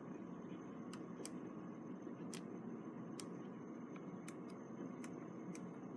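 Faint, irregular small clicks, about eight over several seconds, from a compact point-and-shoot camera being handled and its buttons pressed, over steady room hiss with a thin high whine.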